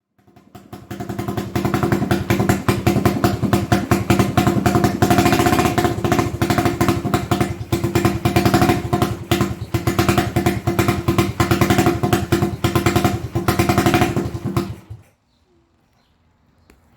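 Single-cylinder four-stroke engine of a 1980 Honda XL250S motorcycle running with a rapid, even firing beat. It comes up over the first second or two, holds steady, and cuts off suddenly about fifteen seconds in.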